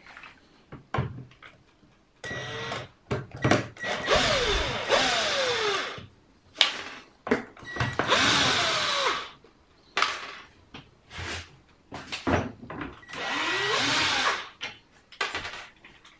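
AEG cordless drill-driver working wood screws in a wooden frame, running in three bursts of a few seconds each. Its whine drops in pitch during each run, with clicks and knocks of handling in between.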